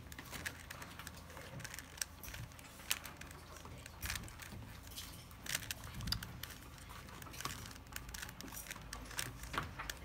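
Plastic 3x3 Rubik's cube turned by hand, its layers clicking and rattling at irregular intervals as the faces are twisted.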